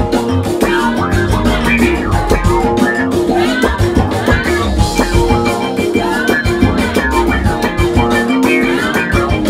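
Band music with a drum kit and plucked string instruments, playing continuously with a steady beat.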